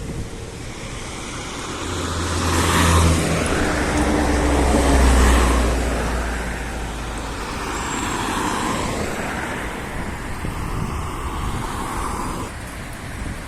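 Road traffic going by: the tyre and engine noise of a passing vehicle swells and fades with a low engine hum, two to six seconds in. Quieter passing cars follow.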